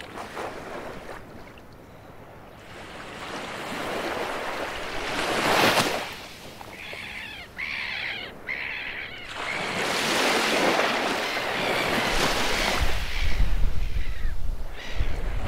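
Baltic Sea waves washing onto a beach: one surge swells and peaks about a third of the way in, then falls back, and a longer wash follows. A few short high calls come in the lull, and a low rumble joins near the end.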